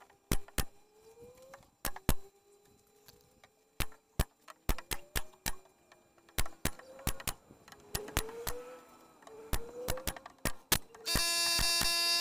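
Pneumatic nail gun driving nails into the edge of a wooden cabinet top: a quick, irregular run of sharp shots, some in close pairs. A loud steady buzz starts suddenly near the end.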